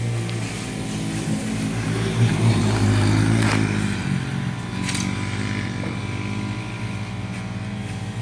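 Small race vehicle's engine running as it laps a dirt oval, growing louder as it comes past about two to three seconds in, then easing away.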